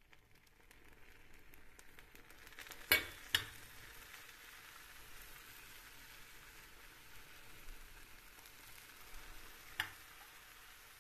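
Cold syrup ladled onto hot, freshly baked şöbiyet pastries in a glass baking dish, sizzling steadily as it soaks in. There are two sharp clinks about three seconds in and one near the end.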